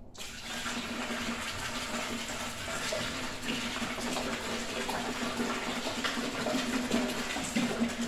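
A gallon of white distilled vinegar poured from a plastic jug into a plastic bucket: a steady splashing pour.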